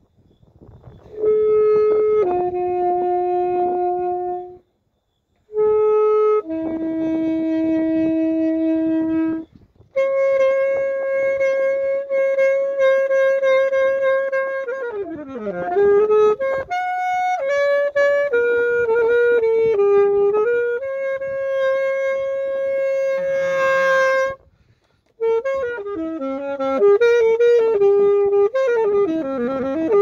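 Saxophone playing a slow melody of long held notes in phrases separated by short pauses, with a downward slide about halfway through and quicker runs of notes near the end.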